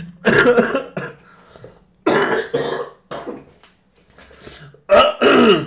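A man coughing hard, three harsh bouts of coughing with some throat clearing, the last near the end.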